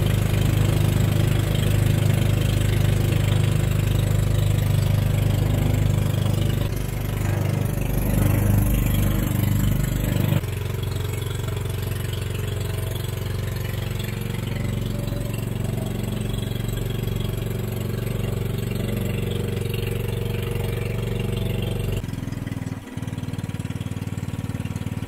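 Small boat's engine running steadily, then throttled back about ten seconds in to a lower, quieter note that holds, with a further slight drop near the end.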